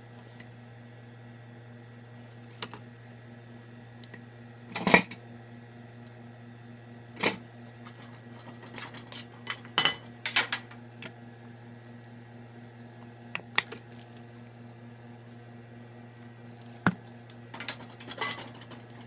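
Scattered kitchen clatter: irregular knocks and clinks of dishes, utensils and containers being handled on a counter, the loudest about five seconds in, over a steady low hum.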